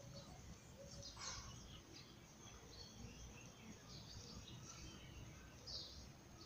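Near silence: faint room tone with a few brief, faint high-pitched chirps, one about a second in and one near the end.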